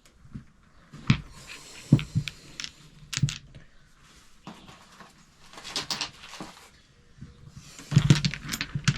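Metal hand tools being handled and set down on a hard surface: scattered clinks and knocks, a few ringing briefly, with a denser cluster near the end and some rustling.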